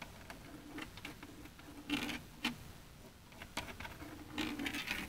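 A gloved hand scraping and rubbing against the boat's fiberglass hull while working material into a corner, heard as a handful of short scratchy strokes, with a longer stretch near the end.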